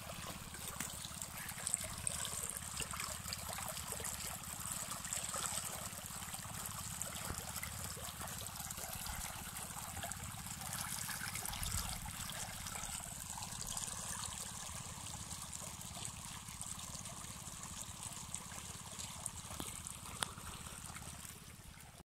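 Irrigation water running out of a pump's lay-flat discharge hose and flowing steadily over a flooded vegetable field in a continuous splashing trickle.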